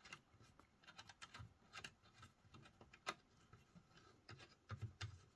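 Faint, irregular small clicks and scrapes of an external Wi-Fi antenna being twisted onto a threaded metal antenna connector on a mini PC's case, with a couple of soft low bumps near the end.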